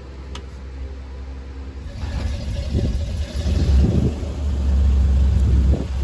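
1970s Ford F-series pickup driving along a street, its engine running and pulling. It gets louder from about two seconds in as the truck approaches.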